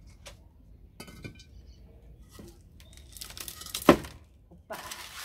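Clay bricks being worked out from under a freshly cast cement-and-ceramic planter: brick scraping on the concrete base, with a sharp knock about four seconds in and another rough scrape near the end.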